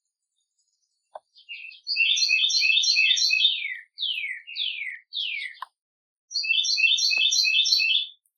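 A songbird singing: a fast trill of repeated complex notes, three downward-slurred notes, then a second rapid trill near the end.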